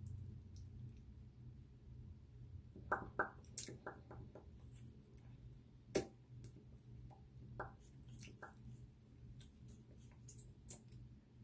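Soft clicks and small squishes from handling a lip-colour tube and its applicator wand, over a faint low hum. A few clicks come about three seconds in, a sharper one about six seconds in, and lighter ticks after.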